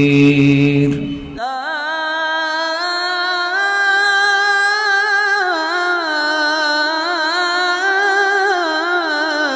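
A man's recitation voice holding the last drawn-out note of a Quranic verse, cut off suddenly about a second in. Then a single wordless vocal line takes over, chanted in slow, ornamented turns that rise and fall: an unaccompanied nasheed-style outro jingle.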